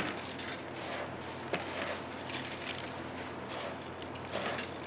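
Food-preparation sounds at a waffle stall: scattered light taps and clicks over a steady low hum.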